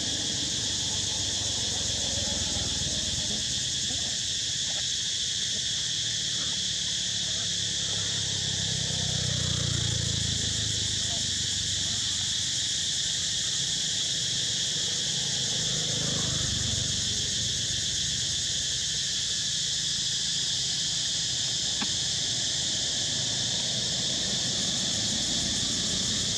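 Steady, high-pitched chorus of insects buzzing without a break, with a low rumble swelling briefly around ten seconds and again around sixteen seconds.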